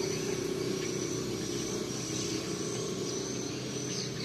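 A steady low mechanical hum, like a motor running, with a constant high insect trill above it.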